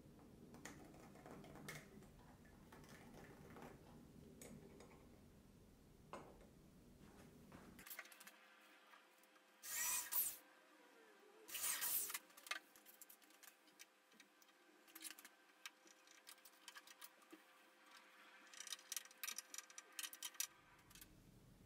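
Small electric drill run in two short bursts, about two seconds apart, boring pilot holes into a wooden board. Light handling clicks and rubbing before and after.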